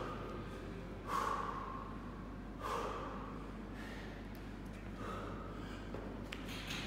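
Heavy, winded breathing of an athlete resting mid-workout: three loud, forceful exhales a couple of seconds apart.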